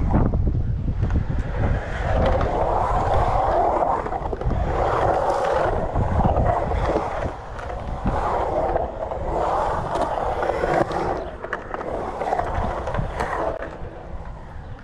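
Skateboard wheels rolling and carving across a concrete bowl, the roar swelling and fading every second or two as the board runs up and down the walls. Low wind rumble on the microphone underneath, strongest at the start.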